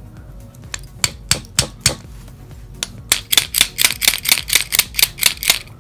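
Sharp clicks of small hard plastic and metal parts being handled. A few separate clicks come first, then, about three seconds in, a quick even rattle of clicks at about eight a second.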